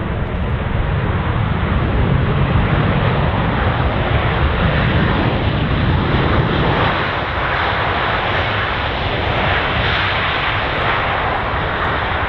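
Boeing 737-800's twin CFM56-7B jet engines on an arriving aircraft, a steady rushing roar. Its deep rumble gives way to a higher hiss in the second half.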